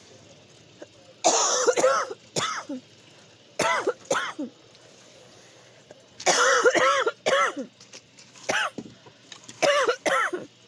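A woman coughing and clearing her throat in repeated short fits, her reaction to smoke and fumes filling the room.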